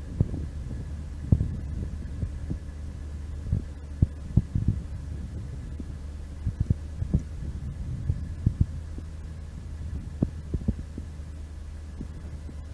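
Chevrolet C60 truck's gasoline V8 idling: a low, steady hum, with irregular dull thumps and a faint steady high tone over it.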